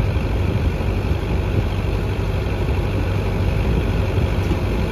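Sonalika 750 tractor's diesel engine running steadily with a low rumble, driving the mud machine through its PTO.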